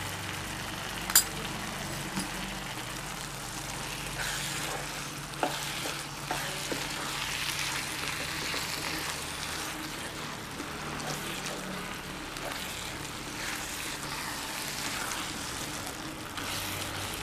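Onion-tomato masala sizzling in a frying pan as it is stirred with a wooden spatula: a steady frying hiss, with a sharp click about a second in and a few light knocks of the spatula on the pan.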